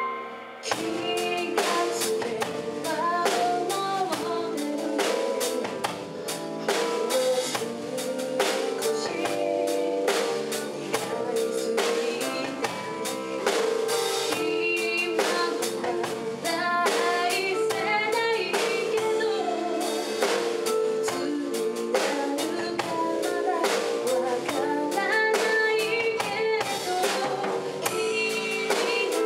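Live band playing a pop song: a Bonny drum kit keeping a steady beat, electric bass, and a woman singing the melody. The drums and full band come in about half a second in, over a held chord.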